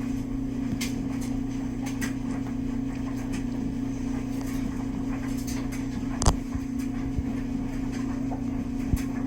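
A steady low mechanical hum with scattered sharp taps, the loudest about six seconds in.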